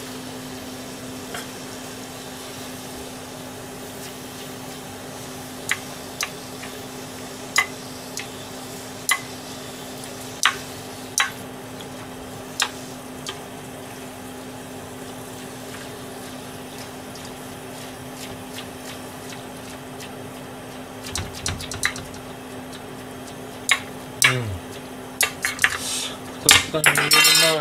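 Chopped cabbage simmering in a small aluminium saucepan on a gas burner, with scattered pops over a steady low hum. Near the end a metal ladle clinks and scrapes in the pan as the cabbage is stirred.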